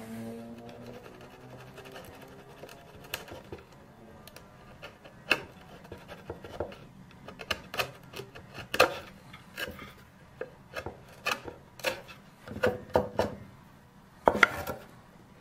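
Steel bench chisel paring the top edge of a birch box by hand: short, irregular scrapes and ticks of the blade shaving wood, more frequent and louder after about five seconds.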